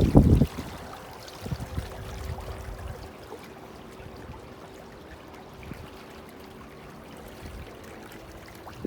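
Water trickling and lapping along a boat's hull while an electric outboard runs with a faint steady whine. A short loud rumble comes at the very start.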